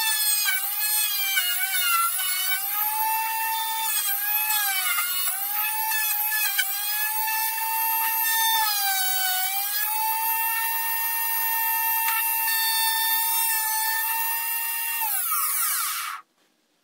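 Table-mounted router spinning a bearing-guided edge bit with a high-pitched whine. The pitch sags and recovers over and over as the bit cuts into the wooden edge under load. Near the end the pitch slides down and the sound cuts off.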